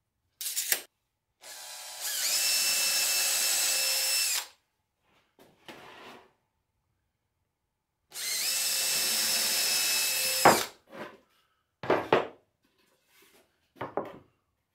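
Cordless drill with a twist bit boring two holes through 3/4-inch Baltic birch plywood for carriage bolts. Each run rises to a steady high whine, holds for about two and a half seconds, then stops, with a sharp knock at the end of the second. A few short knocks follow.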